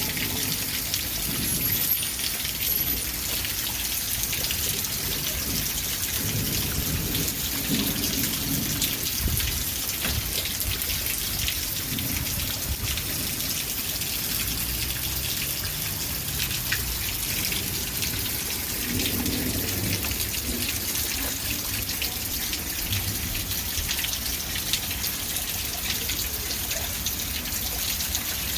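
Steady rain falling, a dense hiss with the patter of individual drops. A few brief low rumbles come and go.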